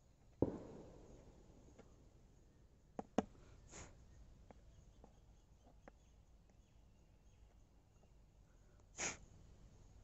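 Soldering iron tip tapping and clicking against the metal LED board of an LED bulb while an SMD LED is desoldered: one sharp tap about half a second in, then two quick clicks about three seconds in. A short breathy sniff near the end.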